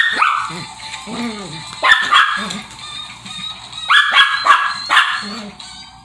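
Small Shih Tzu barking in short sharp bursts several times, a double bark about four seconds in, while play-fighting with a child on the bed.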